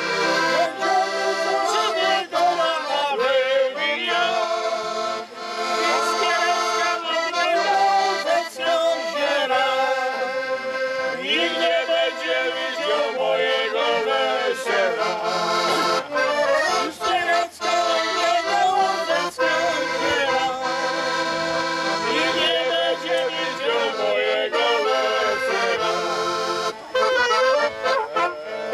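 Instrumental folk music playing, a steady melody with no singing.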